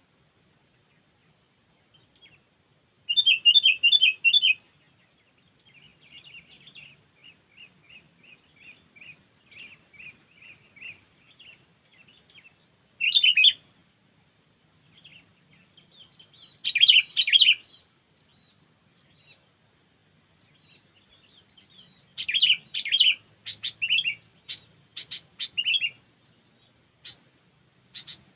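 A sooty-headed bulbul (kutilang) calling as a lure bird, with loud bursts of rapid chattering notes about 3 s, 13 s and 17 s in and a longer run of loud notes from about 22 to 26 s. Softer, evenly repeated chirps fill the gaps between the bursts.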